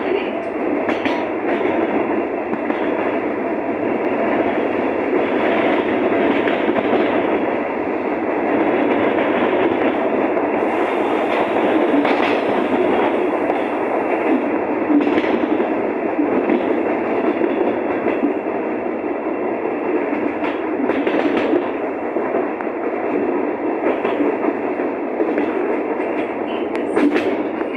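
Toshiba electric multiple unit running along the line, heard from on board: a steady rumble of wheels on the rails with occasional clicks.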